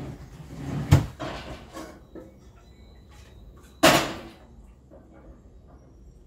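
Kitchen drawer pulled open and pushed shut with a sharp thump about a second in, then a louder clatter just before four seconds as the cooking pot is handled with a ladle.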